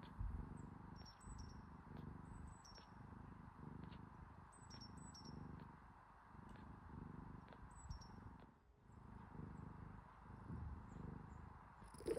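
Cat purring softly, a low rumble in even pulses under a second apart.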